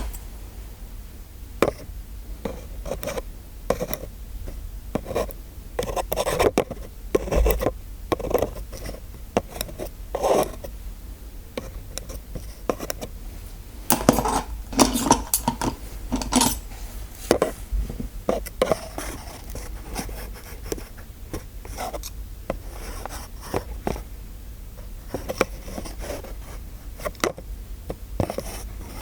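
Close-miked irregular rubbing and scraping strokes with scattered sharp clicks, the handling of dentist-roleplay props.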